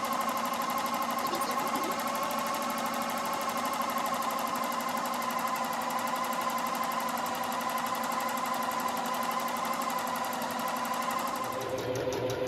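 Electric sewing machine running steadily, stitching coils of cotton clothesline rope together: a constant motor whine over a fast, even run of needle strokes, with the note shifting slightly near the end.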